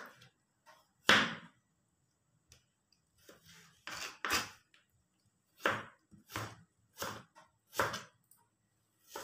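Kitchen knife slicing ginger on a plastic cutting board: separate chops at an uneven pace of roughly one a second, each a short knock of the blade meeting the board, the loudest about a second in.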